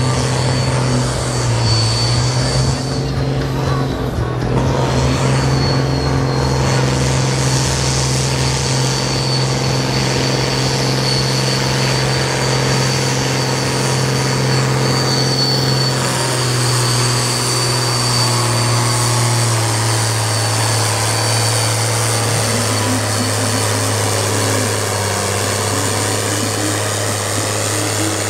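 Farm tractor's diesel engine running loud and steady at high revs, labouring to drag the pulling sled down the track. A thin high whistle is held over it for most of the run, and the sound drops off sharply right at the end.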